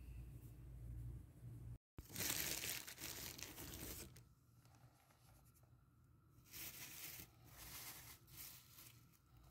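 A low steady hum at first, then, after a brief cut, flour poured onto a work surface: a rushing hiss for about two seconds, followed by three shorter, softer pours.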